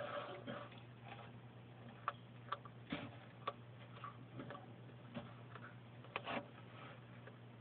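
Bearded dragon chewing raw carrot: sharp crunching clicks at irregular intervals, a run of them a couple of seconds in and a close pair near the end, over a faint steady hum.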